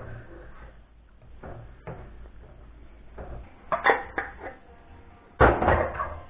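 Clinks and knocks of a metal spoon against glass jars and a steel pot, and jars set down on a stainless-steel sink drainboard, as cooked fish is spooned into the jars. A few soft taps come first, then a cluster of clicks about four seconds in and a louder clatter near the end.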